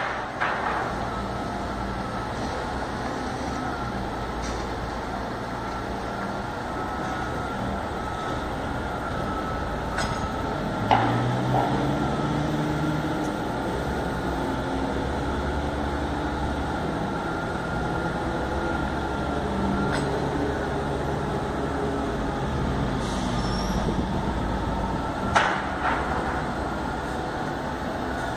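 Steady rumble of vehicle engines and traffic with a faint high steady tone, broken by a few sharp knocks, the loudest about eleven seconds in and again near the end.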